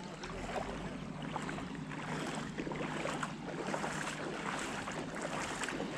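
Shallow floodwater sloshing and splashing unevenly, with many small irregular splashes.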